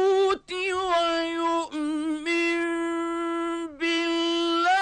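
Male Quran reciter chanting in the melodic mujawwad style: one voice holding long, ornamented high notes with a wavering vibrato, broken twice by very short pauses.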